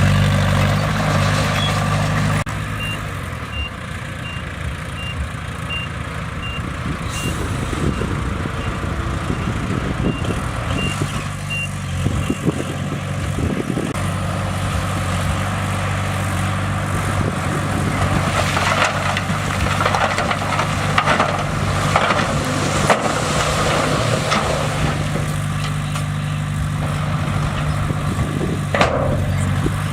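Bulldozer diesel engine running under load. For about the first ten seconds a reversing alarm gives short beeps roughly every 0.7 s. From about the middle on come irregular clanks and scraping.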